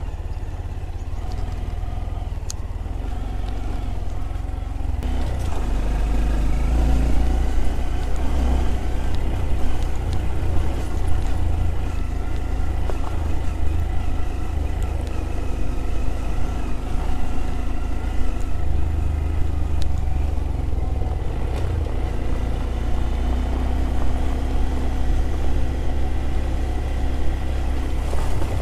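Motorcycle engine pulling away, its pitch rising about five seconds in, then running steadily at a cruise, with wind rumbling on the microphone.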